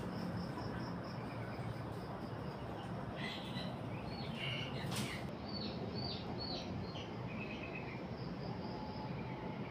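Small birds chirping over a steady background hiss: short chirps, some rising and falling, and brief trills, mostly between about three and seven seconds in, with a single sharp click about five seconds in.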